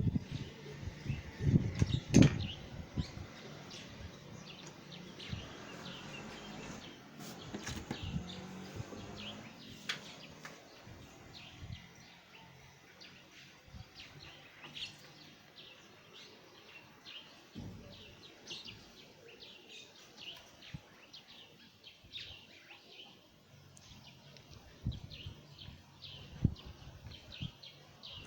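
Small birds chirping over and over in short, high calls, thickest in the second half. A few sharp knocks near the start are the loudest sounds, and a low steady hum runs for several seconds early on.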